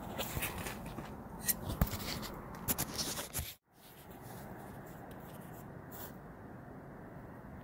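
Rubbing, scraping and clicking of a handheld recorder being moved about for the first few seconds. The sound then cuts out completely for a moment. A steady, even background drone follows, with no distinct events.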